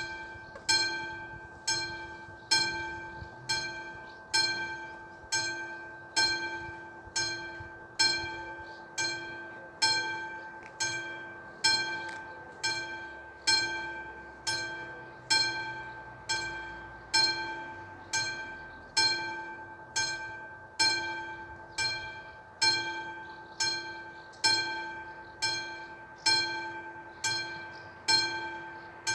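Railway level-crossing warning bell ringing steadily at about one strike a second, each ring fading before the next: the crossing signal is active, warning of an approaching train.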